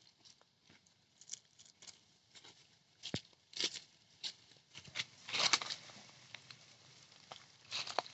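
Irregular small clicks and crackles with a few short, louder rustling bursts, like something being handled, torn or crinkled.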